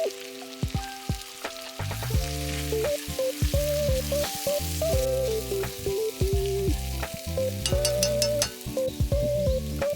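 Instrumental background music, a melody of held notes with a bass line coming in about two seconds in, over a steady hiss of food sizzling in a pan.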